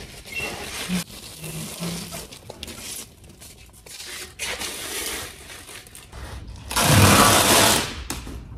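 Foil-faced mineral wool insulation boards being handled, with scattered crinkling and rustling of the foil. About seven seconds in comes a louder rush of noise lasting about a second as a board is laid down and slid onto the stack.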